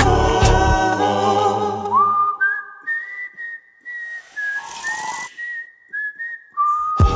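Music: the song's backing band drops away about two seconds in, leaving a lone whistled melody, and the full band comes back in near the end.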